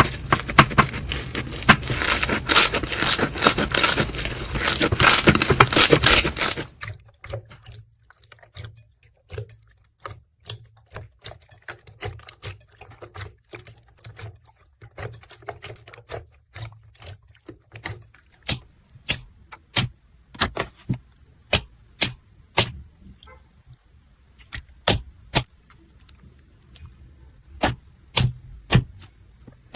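Slime being squeezed and worked by hand. For the first six or so seconds it is a dense, loud crackling; then it changes abruptly to sparse separate clicks and pops that come more often near the end.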